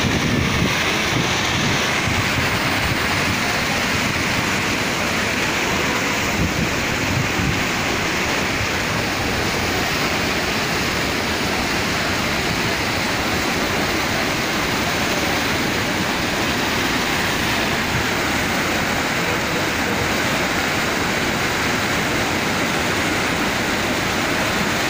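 Muddy floodwater pouring over a long weir, a steady, even rush of water that does not let up.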